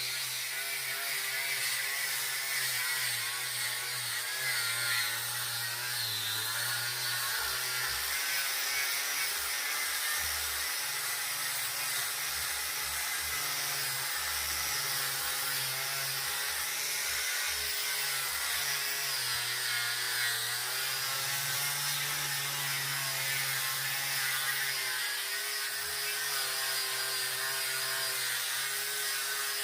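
Small electric power tool running steadily as it works wood, its motor hum wavering slightly under load over a constant hiss of abrasion or cutting.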